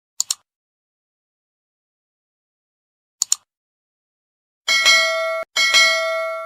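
Sound effects laid in during editing: two short high clicks about three seconds apart, then two bell-like dings, the second ringing on.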